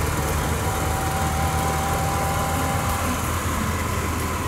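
Vintage car engine running steadily at a low, even pace.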